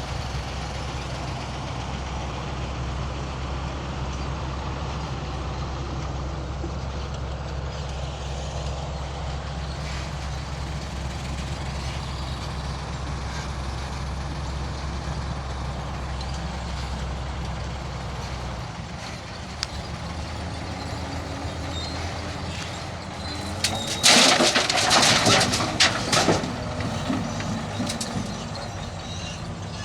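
Heavy diesel machinery engine running steadily with a low drone, which drops away about two-thirds of the way through. A few seconds later comes a loud burst of hissing lasting about two seconds.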